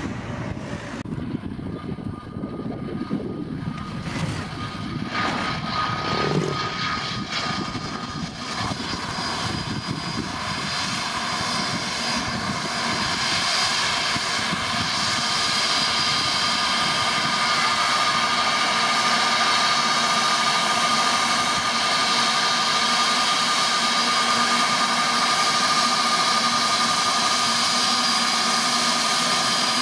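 Airbus A320neo's turbofan engines whining as the airliner taxis up close, growing louder over the first fifteen seconds or so and then holding a steady high whine. Wind buffets the microphone during the first few seconds.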